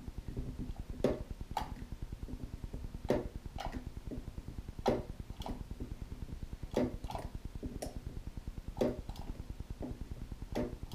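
Bench spot welder zapping a metal strip onto 18650 lithium cells through its handheld pens: sharp snapping clicks come in pairs about half a second apart, a pair roughly every two seconds, over a steady low buzz.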